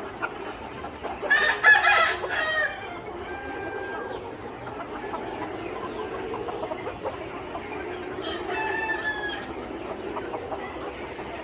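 Kampung chickens: a rooster crows loudly about a second in and calls again later, over a steady background of the flock.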